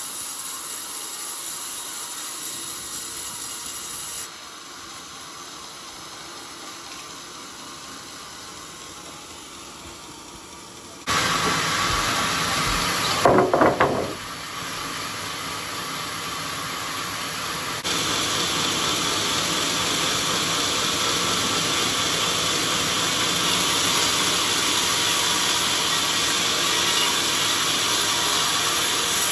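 Horizontal band sawmill's blade sawing through old, very hard coconut-palm timber: a steady hissing rasp of the running saw. Its loudness steps down and back up a few times, and there is a brief louder rasp about halfway through.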